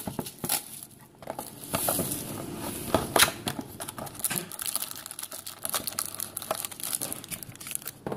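Packaging of a retail box of trading cards being torn open and crinkled by hand: irregular crackles and rips, the loudest about three seconds in.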